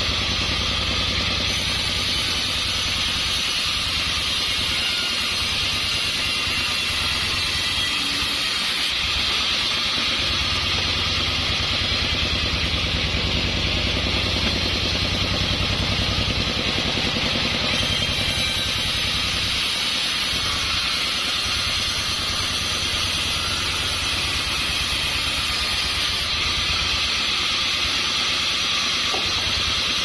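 Taiwanese-made vertical bandsaw mill running steadily, its band blade cutting lengthwise through a sonokeling (Indonesian rosewood) log.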